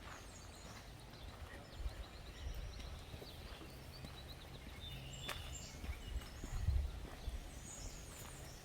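Footsteps on a dirt trail, with uneven low thuds, and faint high bird chirps, including a quick run of chirps a few seconds in.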